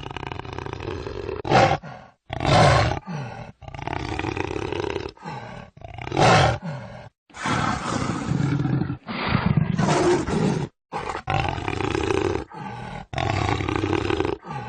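Jaguar roars and growls: a string of separate calls, each from under a second to about two seconds long, broken by abrupt cuts to silence.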